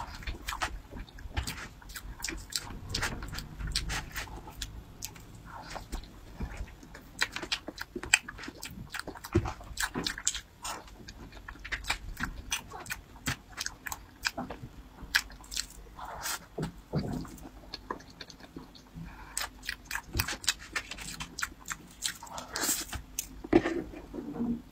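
Close-miked eating sounds of soft matcha mousse cake: many short wet mouth smacks and chewing clicks, with a metal knife and fork tapping and scraping on the cake's plastic tray.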